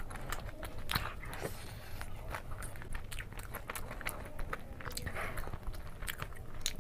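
A person biting and chewing red-coated fried chicken legs, with many short, sharp crunching clicks throughout.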